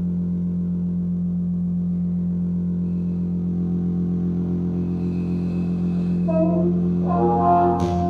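Steady low electronic drone with several held tones, joined about six seconds in by a muted trumpet playing short pitched notes that swell around seven seconds; a short sharp click near the end.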